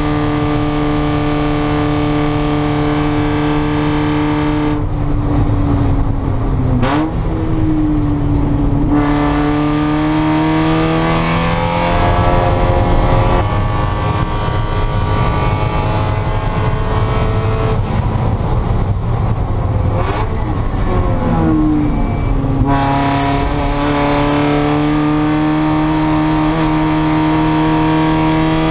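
Spec Miata race car's four-cylinder engine at race pace: holding high revs, then falling in pitch with short throttle blips as the driver brakes and downshifts about five seconds in and again near twenty seconds, and rising again under full acceleration in between and near the end, with a drop in pitch at an upshift around twelve seconds.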